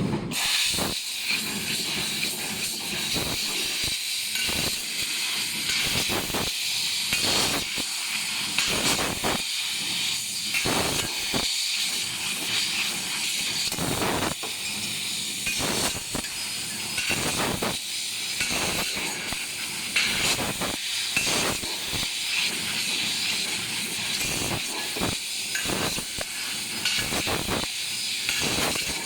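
Fiber laser tube-cutting machine at work: a steady high hiss of assist gas blowing through the cutting head, with frequent irregular sharp clicks and ticks.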